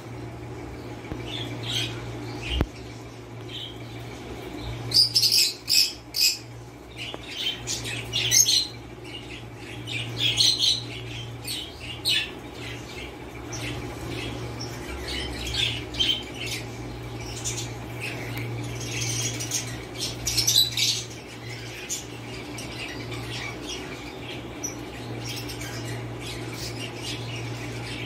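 A flock of rosy-faced lovebirds calling with short, sharp, high chirps that come in clusters every few seconds, over a steady low hum.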